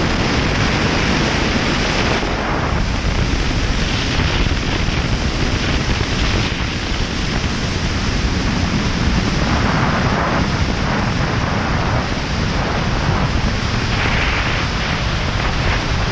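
Steady wind rush over the microphone of a camera on a BMW R 1200 GS motorcycle riding at road speed.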